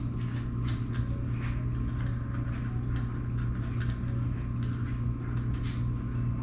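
Light, irregular clicking and ticking as a nut on an old ceiling fan's mount is twisted off by hand, over a steady low hum.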